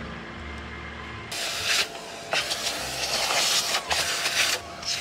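Canister vacuum cleaner running, starting about a second in. It makes a steady whine and surging hiss as the nozzle sucks at the floor.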